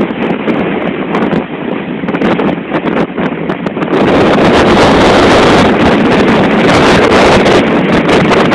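Strong wind buffeting the microphone over the rush of heavy seas breaking along a bulk carrier's hull. It is gusty at first and grows louder and steadier about halfway through.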